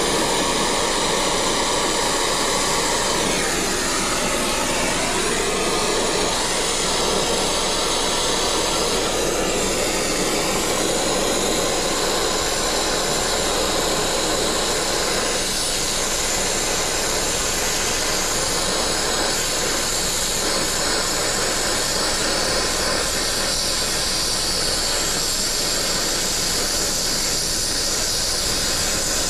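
Brazing torch flame hissing steadily as the copper refrigerant line joints of a replacement ice-machine compressor are brazed.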